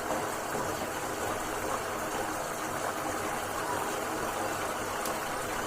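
Melted butter simmering into ghee, making a steady hissing, bubbling sound as the water in the butter boils off. The sound means the ghee is not done yet: it dies down once the water has gone.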